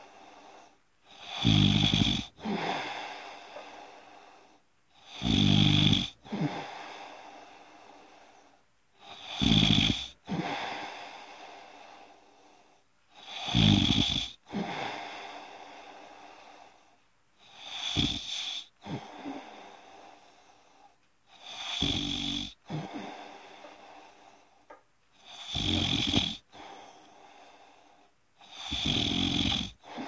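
Snoring during sleep: about eight loud snores in slow, regular succession, one every three to four seconds, each fading away before the next.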